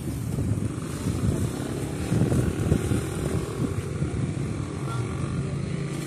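Street traffic: motor vehicle engines running with a steady low rumble.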